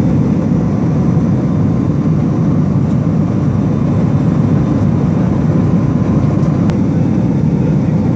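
Steady drone of a surveillance aircraft's engines heard from inside the cabin: an even, loud low rumble that does not change.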